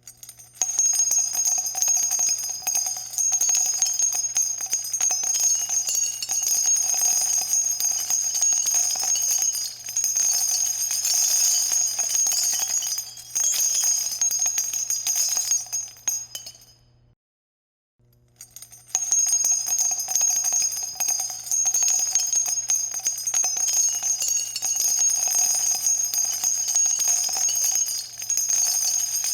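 Spent .50 calibre shell casings pouring down and clinking against each other with a bright metallic ringing, in two long runs broken by a short silence about 17 seconds in.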